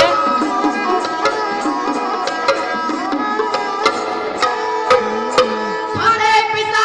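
Dhadd hand drums struck in rhythm under a sarangi's held melody, the instrumental passage of a dhadi vaar; voices come in singing about six seconds in.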